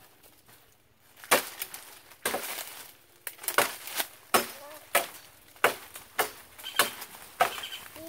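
Machete chopping the end of a wooden pole to cut a point: about ten sharp, separate chops, starting about a second in and coming faster, roughly one every half second to second, after the first few.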